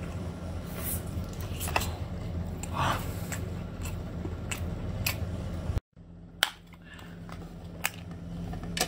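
Close-up eating sounds: wet chewing and sucking on a piece of braised octopus, with many sharp mouth clicks and a brief slurp about three seconds in. After an abrupt cut a little before six seconds, a can's metal pull-tab lid is worked, giving clicks and a sharp snap near the end.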